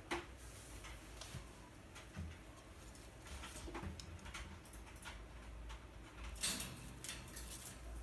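Scattered faint clicks and light rattles, loudest in a short cluster about six and a half seconds in: a ring-necked parakeet climbing about its wire cage, its claws and beak on the bars and perch.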